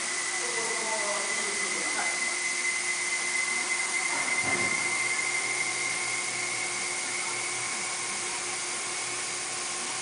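Steady hiss with a high, steady whine from running shop machinery, and a dull knock about four and a half seconds in.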